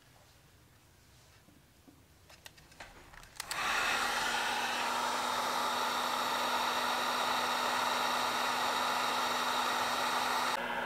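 A few light handling clicks, then about three and a half seconds in a heat gun is switched on. It blows steadily, a rush of air over a steady motor hum, heating the heat-shrink sleeve on a small tool.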